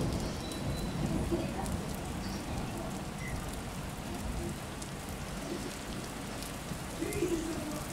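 Steady splashing and trickling of water with fine scattered drips, such as an aquarium filter's return pouring onto the tank's water surface.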